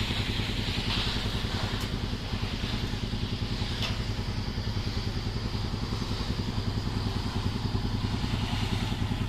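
An engine idling steadily, with an even low chugging pulse and no revving.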